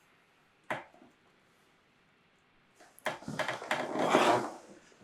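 A single sharp knock about a second in, then, from about three seconds in, a second and a half of clattering and rustling handling noise, like wood being moved around.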